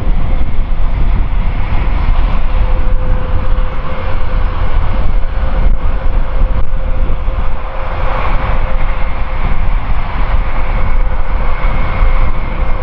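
Large aircraft engines running steadily: a constant low rumble with a steady mid-pitched whine, and a higher whine joining about eight seconds in.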